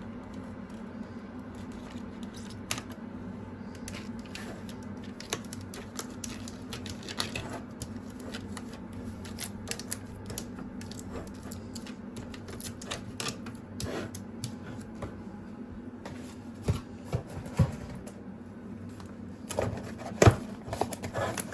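Irregular clicks, taps and light knocks of food containers and jars being set down and moved around on lined refrigerator shelves, a few louder knocks near the end, over a steady low hum.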